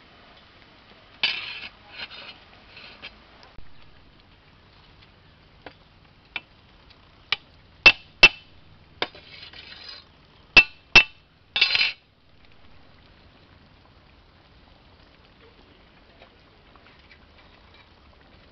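Metal ladle clinking and scraping against a large aluminium cooking pot, about a dozen sharp ringing knocks, irregularly spaced, that stop about two-thirds of the way in.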